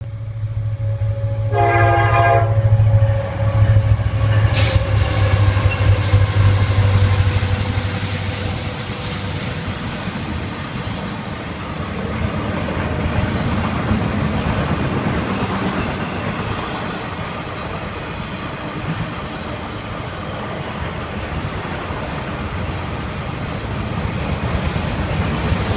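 Florida East Coast Railway freight train passing. The diesel locomotives' engines give a loud low rumble for the first several seconds, with one short horn blast about a second and a half in. The rumble then gives way to the steady rolling and clattering of intermodal container cars on the rails.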